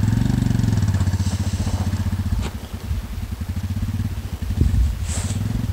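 Royal Enfield Himalayan's single-cylinder engine idling with a steady, even beat, run as a test after its punctured rear tyre was repaired. It dips in level briefly about halfway through.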